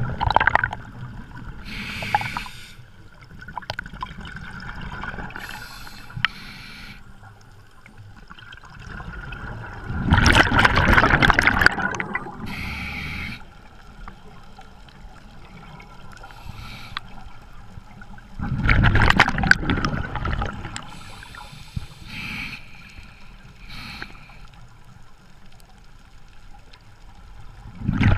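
Scuba diver breathing through a regulator underwater: a long bubbling exhalation about every nine seconds, with quieter hissing inhalations between them.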